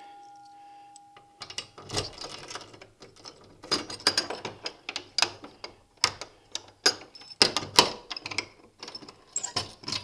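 An FCI manual fire-alarm pull station being opened and reset by hand: a series of irregular clicks, snaps and rattles from its plastic and metal mechanism. In the first second and a half a fading bell tone dies away.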